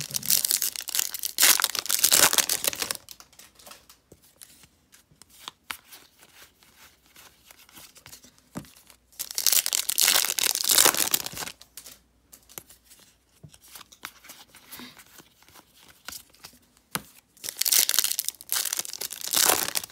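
Trading card pack wrappers being torn open and crinkled by hand, in three rustling bursts of a few seconds each. Faint scattered clicks of cards being handled come between the bursts.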